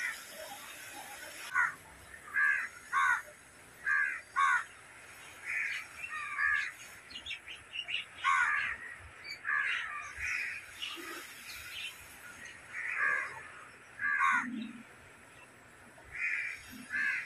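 Crows cawing over and over, a string of short harsh calls, often two in quick succession, with brief pauses between.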